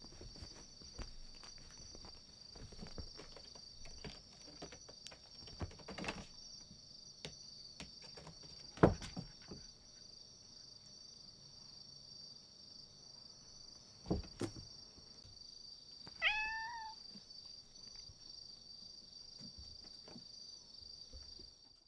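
Domestic cats playing on a carpeted floor: soft scuffles and knocks, with a loud thump about nine seconds in and another about fourteen seconds in. One short meow comes about sixteen seconds in, over a steady high-pitched whine in the background.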